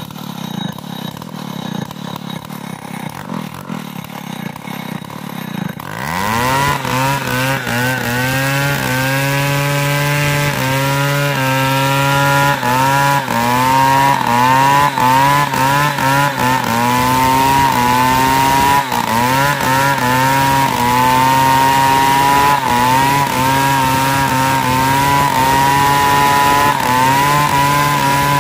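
Large Stihl two-stroke chainsaw ripping lengthwise through a big hardwood log. After about six quieter seconds it revs sharply to full throttle, then runs hard in the cut, its pitch dipping and recovering again and again as the chain loads in the wood.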